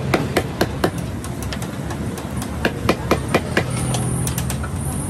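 Small hammer tapping on a rubber tyre tub in quick runs: about five blows in the first second, five more around the middle, then a few lighter taps. A steady low hum sits underneath.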